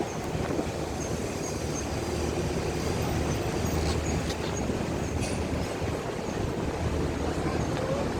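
A ship's engine running with a steady low rumble, with a couple of faint clicks around the middle.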